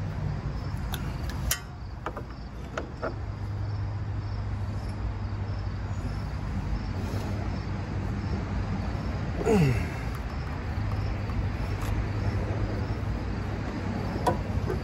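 Outdoor background of a steady low hum with insects chirping faintly, and a few light metal clicks as hand tools touch the open engine. About nine and a half seconds in comes a short, louder falling sound.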